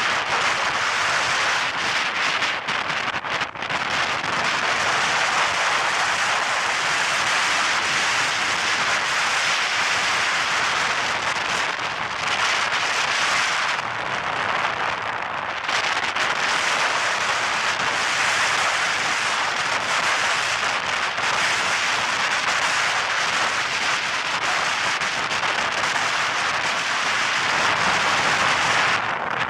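Strong wind and high surf at the shore, heard as a steady, loud rush of noise that eases briefly about halfway through.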